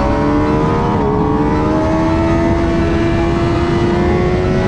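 Suzuki GSX-R600 sportbike's inline-four engine pulling hard under acceleration on track, its pitch rising steadily with a brief dip about a second in. Wind rush on the onboard microphone at speed.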